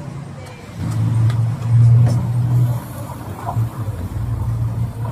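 A motor vehicle's engine running with a steady low hum, loudest between about one and three seconds in, then easing off. A few light clicks sound over it.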